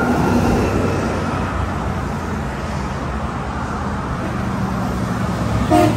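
Steady road traffic noise from cars and trucks passing on a multi-lane highway.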